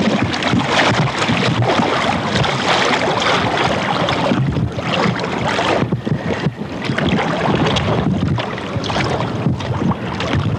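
Steady rush of wind on the microphone and river water, with splashing from people wading through shallow water. The noise briefly eases about halfway through.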